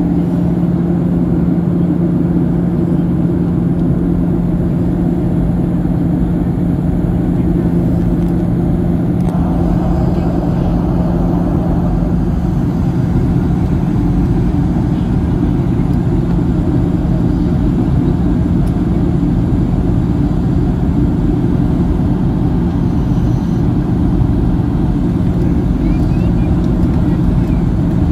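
Steady jet engine and airflow noise inside the cabin of a Southwest Airlines Boeing 737 in flight, with a constant low hum under it. The noise grows a little fuller from about nine seconds in.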